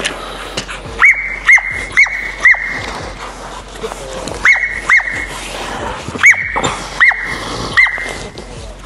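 Dog held back by its harness, giving a run of high-pitched yelping whines, about nine in three quick bunches, each ending on a held note: the eager whining of a protection dog waiting to be let go for a bite.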